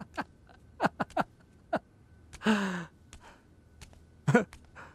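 A person sighs audibly, a breathy exhale with a falling voice about halfway through, between short vocal sounds. A faint steady high tone hums in the background.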